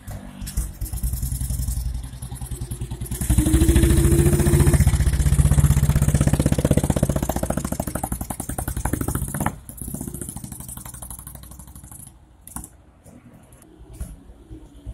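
BSA M20's single-cylinder side-valve engine running with a rapid even beat, then revved as the motorcycle pulls away, loudest a few seconds in, and fading off after about ten seconds as it rides into the distance.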